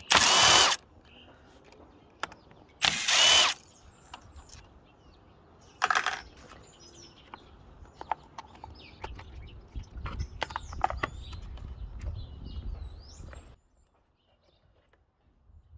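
Cordless drill-driver backing out screws: two short whirring bursts about three seconds apart, then a briefer one about six seconds in. Clicks and plastic handling clatter follow as parts are lifted out.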